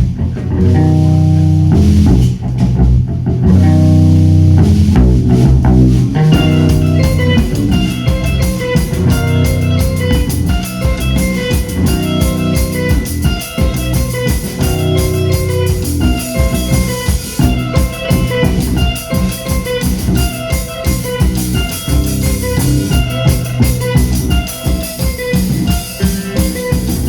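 Live rock band playing an instrumental passage with no vocals. A low bass line dominates the first few seconds, then about six seconds in the full band comes in with a busy drum beat and a repeating guitar figure.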